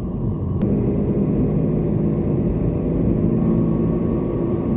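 Steady low rumble of a Toyota Corolla driving along, engine and tyre noise heard from inside the cabin, with a faint click about half a second in.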